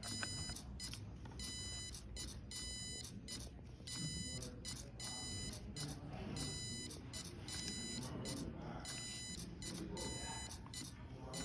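Electronic buzzer of a homemade Morse code converter beeping out Morse code. A high-pitched tone switches on and off in short dots and longer dashes as the machine sends a random string of letters.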